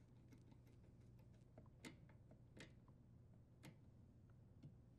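Near silence with a few faint clicks as the brass fitting of the water supply line is worked by hand onto the dishwasher's inlet valve.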